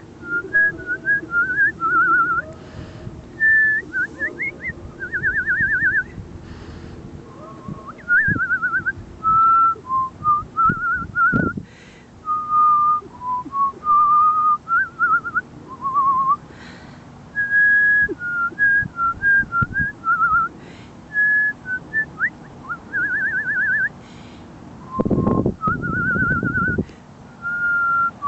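A person whistling a string of short phrases, stepped notes and quick warbling trills with pauses between them. A louder low rumbling noise comes in for a couple of seconds near the end.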